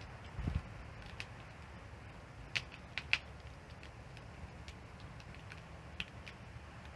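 Wood fire crackling, with scattered sharp pops, the loudest few about two and a half to three seconds in, over a low steady rumble.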